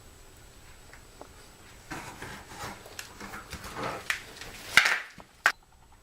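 Irregular scraping and rubbing with light clatter, building for a few seconds, then a loud sharp knock and a second short knock half a second later.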